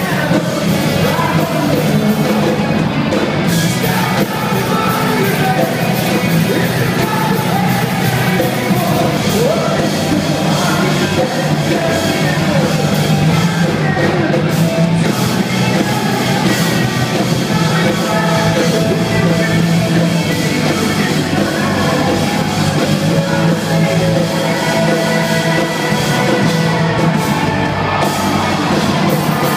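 Live rock band playing loud, with electric guitars, drums and a lead singer, heard from the audience.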